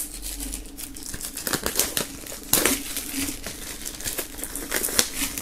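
Clear plastic shrink-wrap crinkling as it is pulled off a hardcover book, an irregular crackle with a few sharper snaps along the way.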